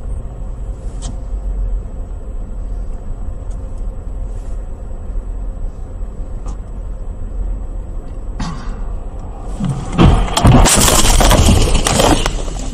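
Steady low rumble of a car driving, heard from inside the cabin. About ten seconds in comes a loud crash: a car collision, followed by about two seconds of loud clattering noise.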